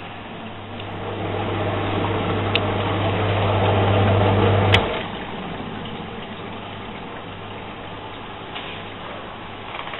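Zanussi DA 4341 dishwasher in its pre-rinse: the wash pump motor hums steadily under swishing water that grows louder. The pump cuts off with a click about five seconds in, leaving a quieter wash of water noise.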